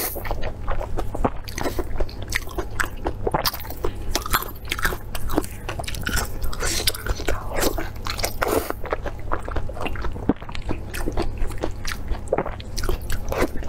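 Close-miked chewing and biting of blood sausage: a dense, irregular run of wet clicks and smacks, along with the sausage being torn apart by gloved hands.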